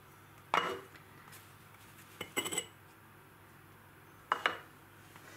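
Glazed clay pot lids clinking against the pots as they are lifted off: three short clatters, about half a second in, near the middle, and near the end.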